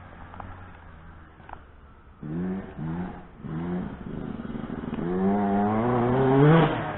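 2007 Yamaha YZ125 single-cylinder two-stroke dirt bike engine, faint at first, then three short rising throttle blips a little over two seconds in, followed by a long rising rev that is loudest near the end and then drops.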